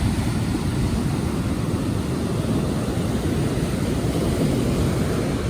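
Ocean surf washing on the beach under a steady low rumble of wind on the microphone.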